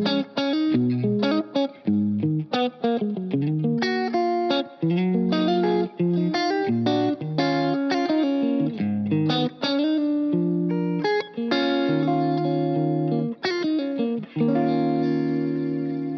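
Vola OZ RV TNC electric guitar playing a riff of short chord stabs and single notes with brief stops, then one long held chord about three-quarters of the way through that rings on and fades toward the end.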